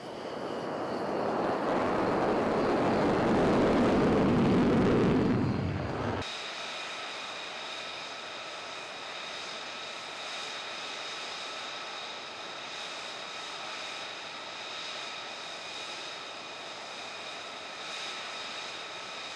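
F-16 fighter jet engine running loud as the jet taxis past, swelling over about five seconds and then cut off abruptly. It gives way to F-35 jets taxiing, their engines a quieter steady whine with several high tones.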